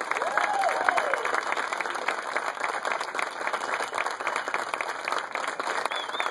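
A large crowd applauding, with dense, steady clapping and a brief shout from the crowd near the start.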